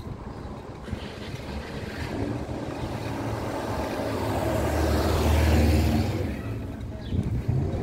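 A motor vehicle passing close by in street traffic: its engine and tyre noise grow louder to a peak about five to six seconds in, then fade away.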